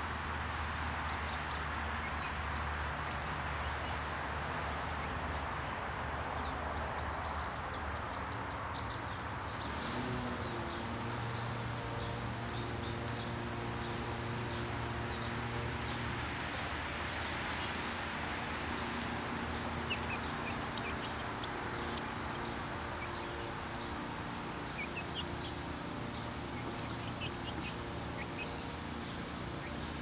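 Small songbirds chirping: many short, high calls scattered through, over a steady rushing background noise and a low hum. A low steady drone comes in about ten seconds in.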